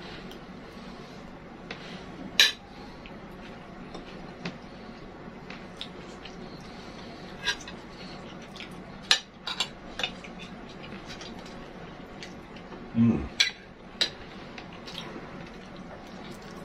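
Metal spoons clinking and scraping on plates of food as two people eat, with scattered sharp clinks, several in quick succession about nine to ten seconds in and again near thirteen to fourteen seconds. A brief low sound comes just before the later clinks.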